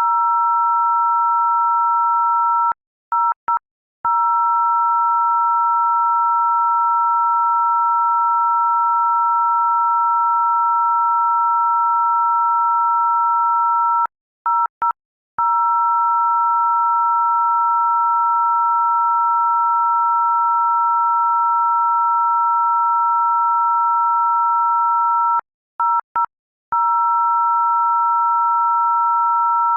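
Loud, steady electronic tone made of two high pitches sounding together, like a telephone dial tone. It cuts out three times, about every eleven seconds, with two short blips of the tone inside each break.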